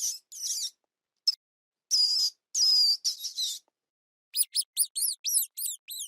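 Parrot calling: a few harsh, high squawks in the first three and a half seconds, then after a short pause a quick run of short, falling chirps, about five a second.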